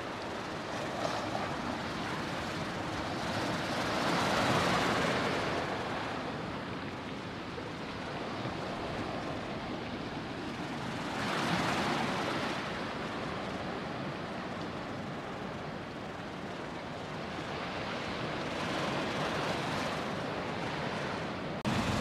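Storm surf on the Black Sea: waves breaking on a pebble beach and over boulders, washing in and out, surging louder about four seconds in, again around eleven seconds and more gently near nineteen seconds.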